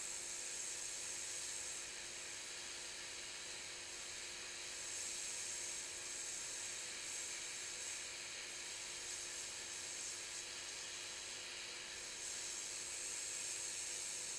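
Steady airy hiss of a hot air rework station blowing on two flux-coated capacitors as they reflow onto their pads, swelling a little now and then.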